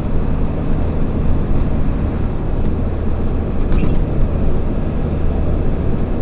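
Steady road noise of a car driving along: a low engine and tyre hum that holds level throughout.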